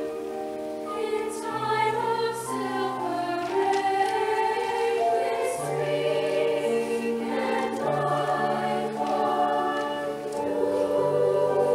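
High school women's choir singing slow, sustained chords, the held notes changing every second or two.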